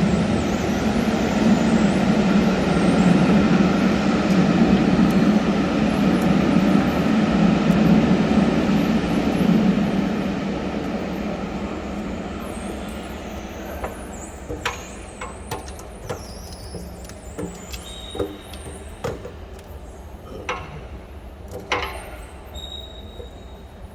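A steady mechanical hum with a low drone, fading away over a few seconds about ten seconds in. After it come scattered sharp clicks and knocks.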